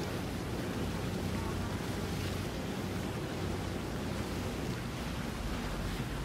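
Steady wind on the microphone over open water with waves, and a low, even boat-engine hum underneath that grows a little stronger near the end.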